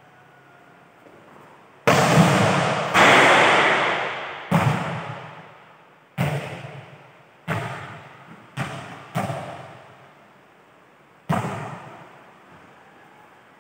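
A series of about eight sharp volleyball smacks and bounces at irregular intervals, the first two loudest. Each rings on for a second or two in a large hall with a sheet-metal roof.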